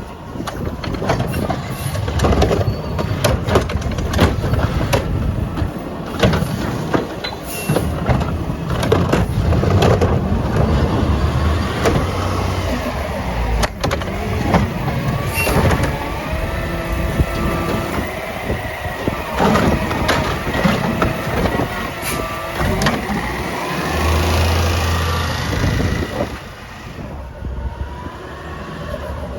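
Mack LR garbage truck with a McNeilus Meridian body and Curotto Can arm working: the engine rumbling and changing pitch under hydraulic load, with frequent knocks and clatters of metal. The engine rises in pitch and is loudest about three-quarters of the way in, then drops off near the end.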